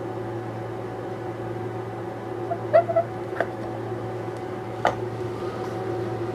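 Quick-Grip one-handed bar clamps being pumped tight on a glued box: a few short squeaks and sharp clicks about halfway through and another click near the end, over a steady low hum.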